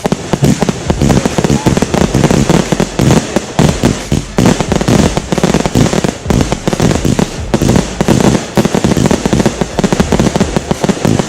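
Consumer fireworks going off in a dense, rapid barrage of bangs and crackles with hardly a gap between them.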